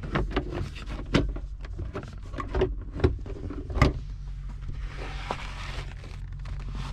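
Plastic center console trim of a 2003 Ford Focus SVT knocking and clicking as it is wiggled loose by hand: several sharp knocks, the loudest about four seconds in, then a scraping rustle of plastic around five seconds in.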